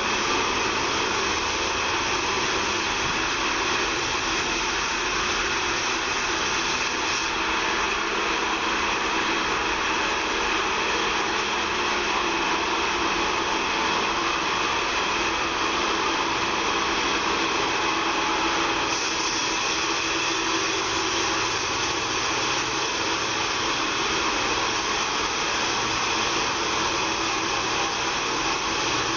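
Band sawmill running steadily, a continuous mechanical whine and hiss with no break, as the bandsaw saws pine. The tone shifts slightly about seven seconds in and again near nineteen seconds.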